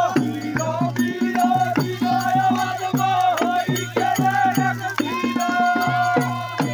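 Men singing a Holi phag folk song together in long held notes, with a hand-played barrel drum keeping a quick steady beat of about three strokes a second and hands clapping along.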